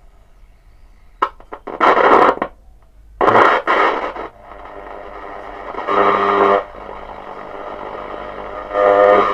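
Valve radio's loudspeaker (1941 Fisk Radiola model 276) crackling, then giving four loud bursts of static as the tuning knob is turned, over a steady hum that sets in about four seconds in. The owner calls it pretty bad interference and blames a dirty tuning capacitor that needs cleaning.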